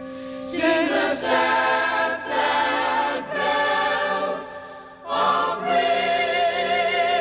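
A vocal choir singing, holding sustained chords in several voices, with a brief break in the phrase about five seconds in.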